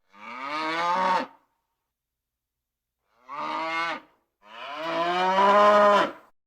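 A cow mooing three times, with a pause after the first call. The last moo is the longest and loudest.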